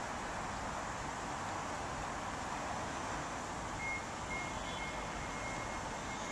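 Steady outdoor background noise with no clear single source, and a faint thin high-pitched tone that comes and goes from about four seconds in.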